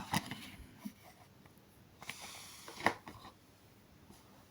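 Faint handling noises: a few light clicks and a short stretch of rubbing and rustling as objects are moved about, with a sharper click near the end of it.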